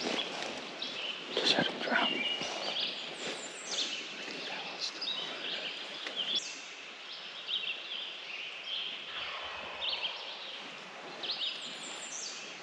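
Several songbirds singing, a busy run of short chirps and trills from different birds, with a couple of brief rustles about one and a half seconds in.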